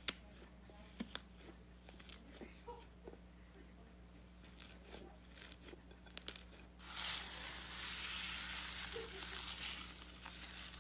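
Slime being handled: scattered small clicks and pops, then about seven seconds in a louder, steady noise that carries on to the end.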